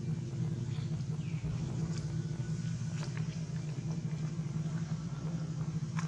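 A steady low rumble throughout, with a few faint clicks and a short, faint falling squeak about a second in.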